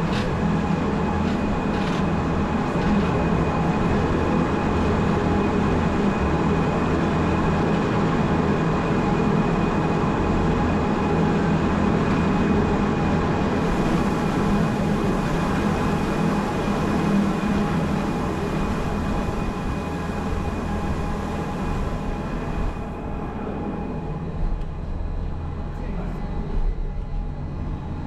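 Electric cogwheel rack train of the Gornergrat railway running downhill, heard from aboard: a steady rumble of wheels and rack with a constant whine from the drive. The sound turns duller and a little quieter about 23 seconds in.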